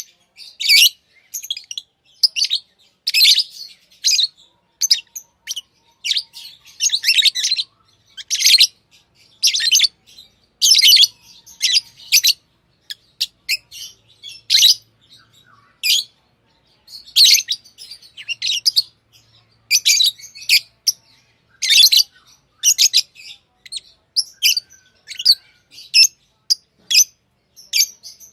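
Pet lovebirds chirping: short, high chirps in an irregular run, about one or two a second, with brief pauses between.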